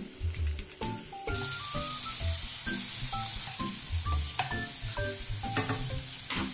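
Bacon sizzling in hot oil in a nonstick wok, the sizzle starting suddenly about a second in as the bacon is tipped in, then stirred with a wooden spatula.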